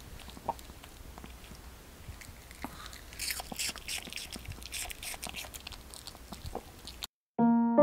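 A Maltese dog chewing apple: irregular crisp crunches and wet clicks, busiest about three seconds in. The chewing stops suddenly near the end and piano notes begin.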